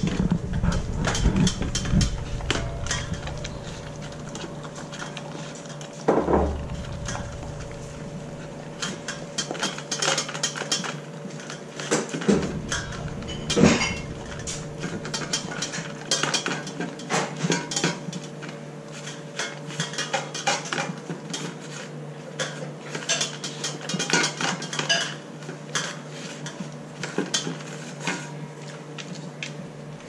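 Dog licking and nosing a stainless steel food bowl that is emptied of food, the tongue and muzzle pushing it about in many irregular metallic clinks and scrapes.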